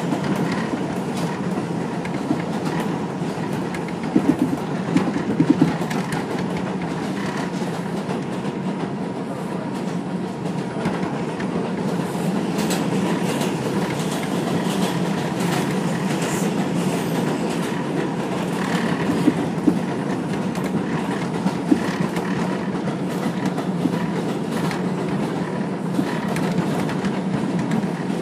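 R142 subway car running on elevated track, heard from inside the car: a steady rumble of wheels on rail, with clusters of clacks over rail joints a few seconds in and again about two-thirds of the way through.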